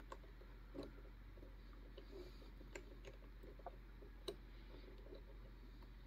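Faint, sparse clicks from a disc detainer pick turning the discs inside an Anchor Lås disc detainer core, about one a second, with a sharper click a little past four seconds in.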